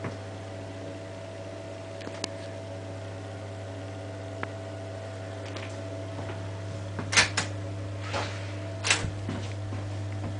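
Steady low electrical hum, with a few small clicks and then, about seven to nine seconds in, a cluster of louder clacks and rattles of a hotel room door's lever handle and latch being worked.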